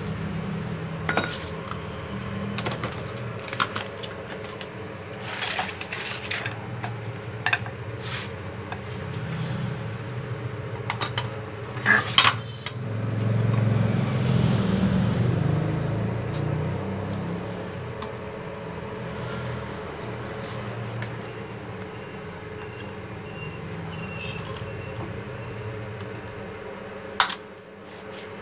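Metal clinks and clanks as a steel tube is handled and clamped in the vise of a mini metal cut-off saw. A loud double knock comes about twelve seconds in and a sharp clank near the end, over a low hum that swells about halfway through.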